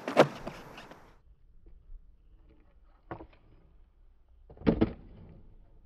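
Skateboard landing a kickflip on concrete: a sharp crack as the board slaps down just after the start, with wheels rolling that fade out about a second in. Later come a light knock about three seconds in and a heavier thud of the board near five seconds.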